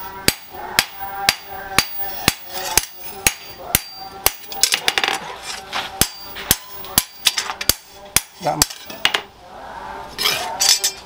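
Hand hammer forging a leaf-spring steel knife blade on a small steel anvil: steady blows about two a second, each ringing briefly. The hammering stops about nine seconds in.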